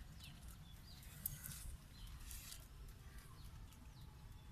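Faint rural outdoor ambience: a steady low rumble with a few faint, distant bird calls and light rustling.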